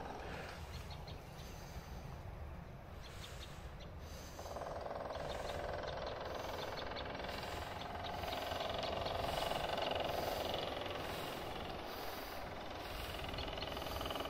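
An engine running steadily, growing louder about four seconds in.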